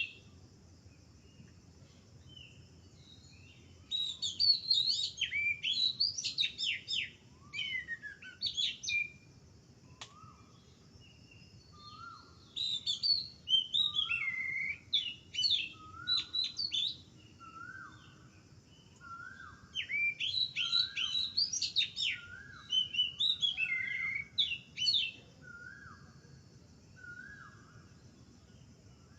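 Small birds chirping and twittering in bursts of rapid, high notes a few seconds apart, while another bird repeats a short, lower note over and over through the middle of the stretch.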